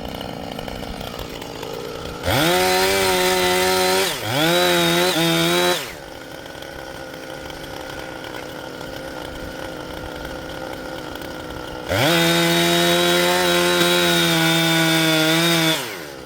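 Two-stroke chainsaw run up to full throttle in three bursts: two close together about two seconds in, split by a brief dip, and a longer one of nearly four seconds about twelve seconds in, each rising quickly to a steady high pitch and falling away. A lower, steady engine sound runs in between.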